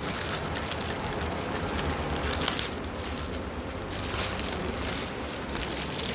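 Packaging crackling and rustling by hand as a cardboard box is opened, with many small irregular crackles throughout.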